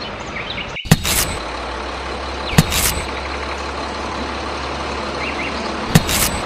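Excavator machinery sound: a steady low engine rumble broken by three short, sharp hisses, about a second in, at about two and a half seconds, and near the end.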